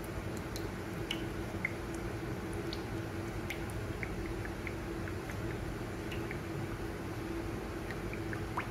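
Cooking oil pouring from a bottle into a frying pan: faint scattered glugs and drips over a steady low hum.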